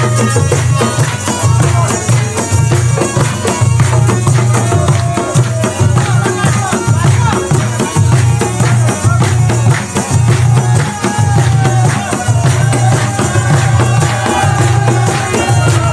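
Background folk-style music with a steady, repeating drum beat and a sliding melody line over it.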